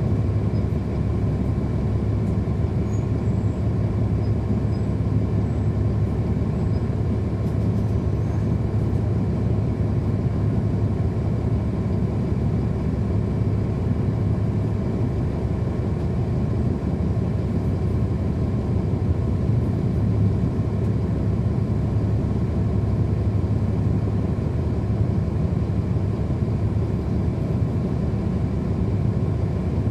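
Heard from inside the cabin of a 2010 NABI 416.15 (40-SFW) transit bus: its Cummins ISL9 inline-six diesel engine running in a steady, unbroken drone.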